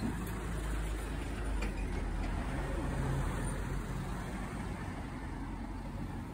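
Road traffic noise, with a steady low rumble from a motor vehicle running nearby.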